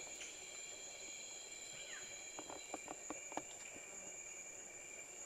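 Steady high drone of rainforest insects, with a short falling whistle about two seconds in and a few light snaps in the undergrowth around three seconds.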